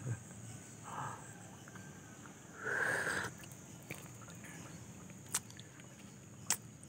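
Quiet rural morning ambience with a steady high insect drone. A short, louder sound comes about three seconds in, and two sharp clicks come near the end.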